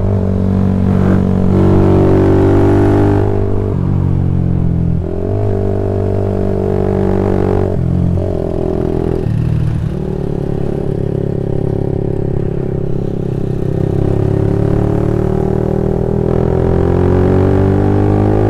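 Old-model Honda CB150R's single-cylinder engine breathing through a 26 cm BPro Racing aftermarket silencer while riding uphill. The exhaust note climbs and drops in pitch several times as the bike is revved and shifted through the gears.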